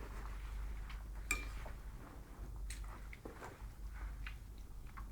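Scattered light clicks and taps, with one sharp, briefly ringing clink about a second in.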